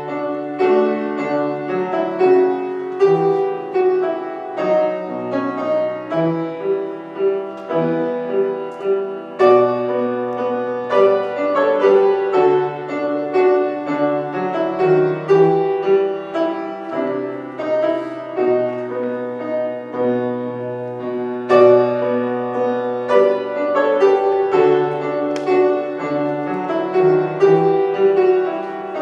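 Grand piano playing slow, held chords, with a melody over long bass notes.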